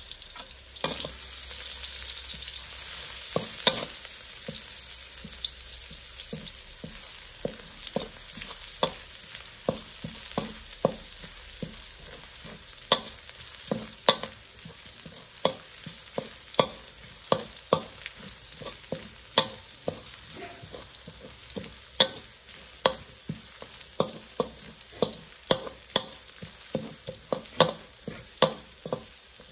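Minced garlic sizzling in hot oil in a metal wok, with a steady hiss that is strongest in the first few seconds. A metal wok spatula stirs it, scraping and clicking sharply against the wok about once or twice a second.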